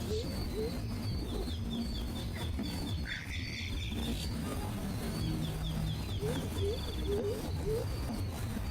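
Birds calling: two runs of short high chirps at about four or five a second, with a few short low upward notes between them.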